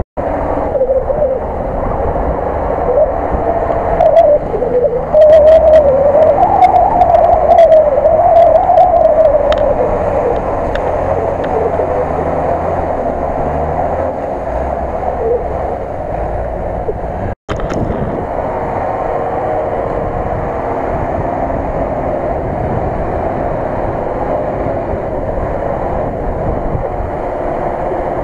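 Mercedes-Benz Unimog's diesel engine labouring as the truck drives through deep mud. Its pitch swings up and down repeatedly around four to ten seconds in, the loudest part, over a dense rumble. Afterwards it settles into a steadier drone.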